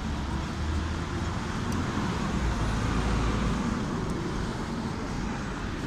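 Steady city street traffic noise, with a low rumble of passing vehicles that eases off a little over halfway through.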